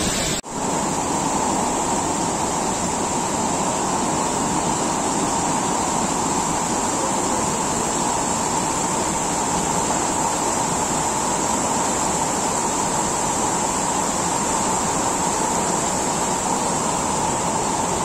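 Waterfall: a steady, even rush of falling water, broken by a brief dip about half a second in.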